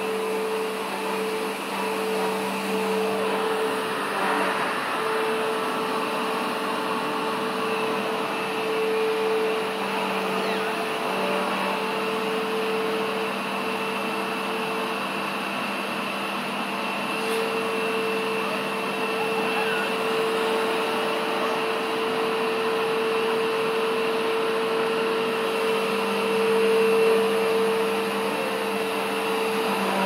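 Vacuum cleaner running steadily, its motor hum holding one even pitch throughout.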